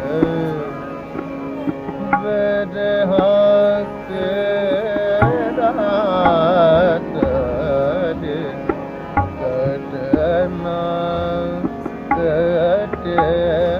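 Music in an Indian classical vocal style: an ornamented sung melody over steady held tones and tabla strokes.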